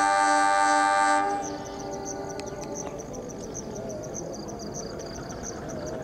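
A CC 206 diesel locomotive's air horn sounds one long chord of several tones as the train is about to pull out, and cuts off about a second in. Afterwards there is a low background with insects chirping in a fast, regular pulse.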